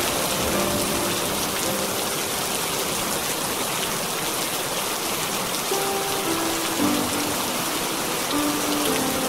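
Steady, even rainfall, with a slow melody of soft held notes playing quietly underneath.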